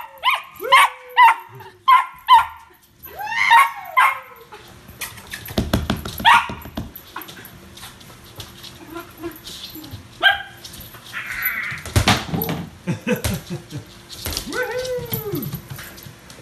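Toy poodle barking excitedly: a fast run of high yaps for the first four seconds, then a few scattered barks and a falling whine-bark near the end. In between come thumps and knocks as the ball is chased and batted across the wooden floor.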